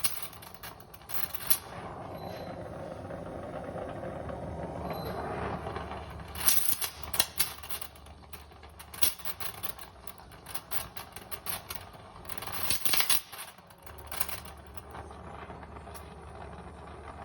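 Oxy-acetylene torch flame hissing steadily as it heats a car door hinge, with two clusters of sharp clicks and clatter, about seven and thirteen seconds in.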